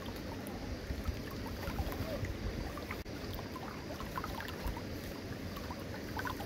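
Wind buffeting the microphone, a steady rushing noise with irregular low rumbles, with faint scattered small clicks and scrapes.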